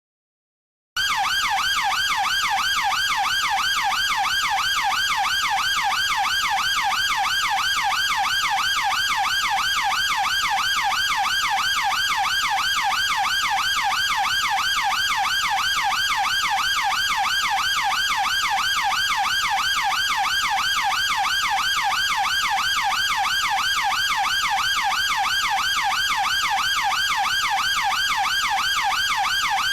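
British police car siren on a fast yelp: a rapid, evenly repeating rise and fall in pitch. It starts about a second in, after a brief silence.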